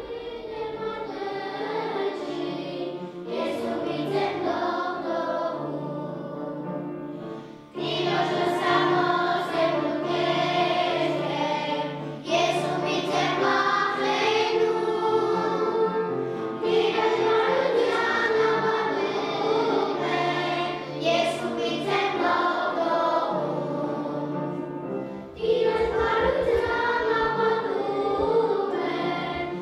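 A choir singing to a low musical accompaniment. The music breaks off abruptly and picks up again a few times.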